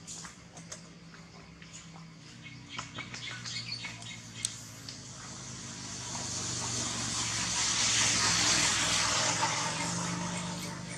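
Outdoor ambience: scattered small clicks and rustles, then a high hissing swell that builds from about five seconds in, peaks, and fades near the end, over a faint low hum.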